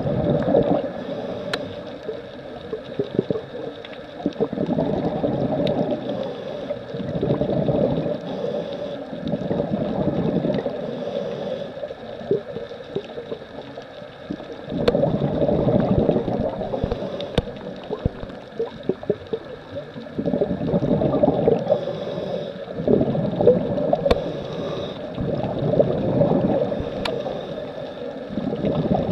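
Scuba diver breathing through a regulator underwater: bursts of gurgling exhaust bubbles every few seconds, with a few faint sharp clicks between them.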